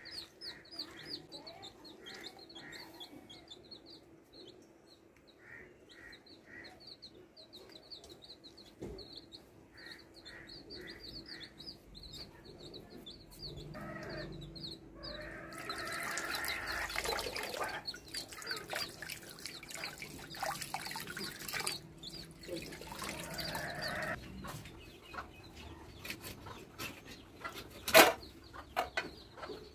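Chickens clucking, with rapid high chirping through the first half and a louder stretch of calls about halfway through. A single sharp knock sounds near the end.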